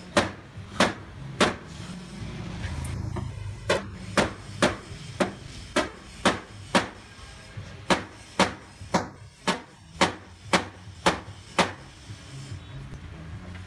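Hammer striking a wooden bed rail where it meets the bed's leg, knocking it into place: a run of about eighteen sharp knocks, roughly two a second, with a short pause after the first three.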